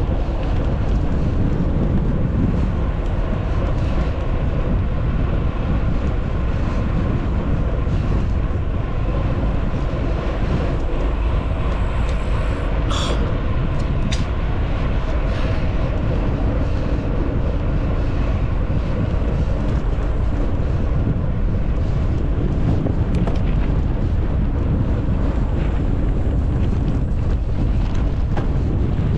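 Mountain bike riding heard from a GoPro: wind buffeting the microphone over a steady rumble of tyres and bike, with a couple of sharp clicks from the bike about halfway through.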